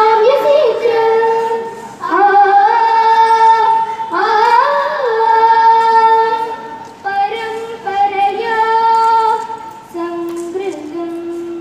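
A young female voice singing a Sanskrit song in long held notes with short sliding ornaments, phrase after phrase. The last phrase sits lower and is softer.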